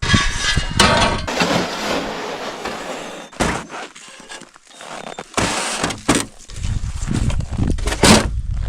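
Scrap steel clanking and scraping as it is hauled over snow, with a series of sharp metal knocks.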